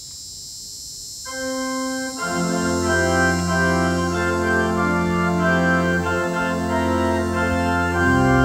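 Organ music starting up: a single held note about a second in, then full sustained chords from about two seconds on, over a steady background hiss.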